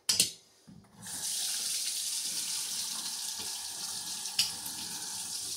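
Kitchen sink faucet running steadily, water splashing into the sink, after a brief clatter at the start.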